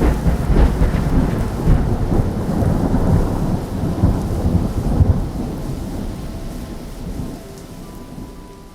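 A deep rumbling boom sound effect: it starts suddenly and loud, rolls on with a crackling rumble for several seconds, then slowly fades away.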